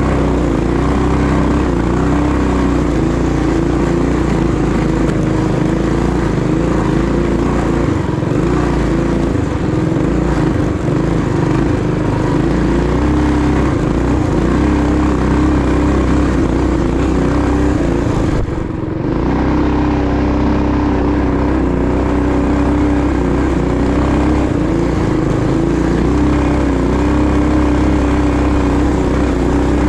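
Predator 212cc single-cylinder engine of a Coleman CT200U-EX mini bike, governor still in place, running under throttle through a custom exhaust. Its pitch shifts a little, and it eases off briefly about two-thirds of the way in.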